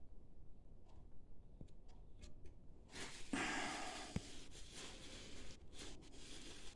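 Faint scattered clicks, then from about three seconds in the rustling and rubbing of a cloth rag being handled close by, as it is picked up to wipe off glue at a clamped joint.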